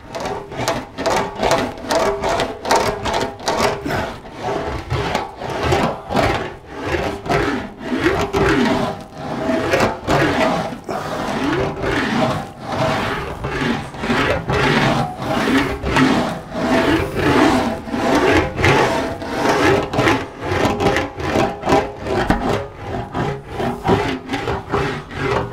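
Sheet-metal car panel being rolled back and forth through an English wheel, about one pass a second. Each pass gives a rumbling rub, with a ringing tone from the panel that rises and falls.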